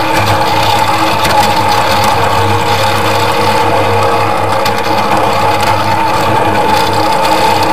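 Miniature ride-on park train running along its narrow-gauge track: a steady mechanical drone with a constant whine from the drive, and scattered faint clicks from the wheels on the rails.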